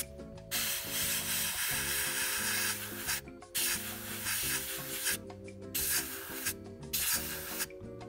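Gravity-feed airbrush spraying: an airy hiss in stretches of one to two seconds that stops and restarts several times, with short breaks about three and five seconds in and twice more near the end.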